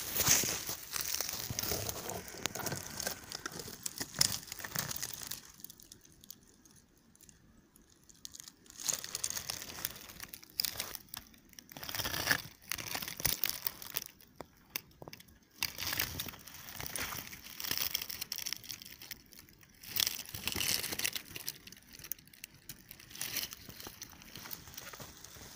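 Irregular rustling and crackling of dry forest undergrowth and pine-needle litter being brushed through, in uneven bursts with short quieter gaps.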